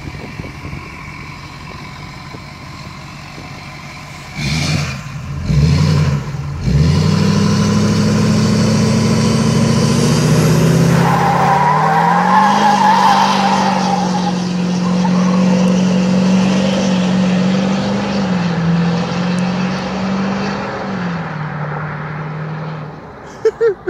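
Tuned Duramax V8 turbo-diesel in a 2006 Hummer H2 idling, blipped three times, then held at high revs through a long burnout, with tires squealing for a few seconds midway and the engine pitch stepping up and down. It falls away just before the end.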